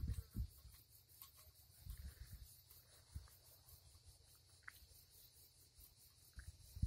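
Faint steady chirring of insects, a high pulsing hiss, with a few soft low gusts of wind buffeting the microphone.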